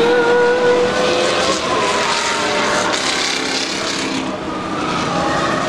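A pack of race car engines running hard together, several engine notes overlapping over tyre and wind noise, one note rising slightly in the first second and a half.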